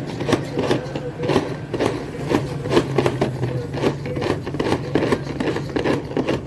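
Manual food chopper being worked, its blades and gears turning in the bowl with a rhythmic rasping scrape, about three strokes a second.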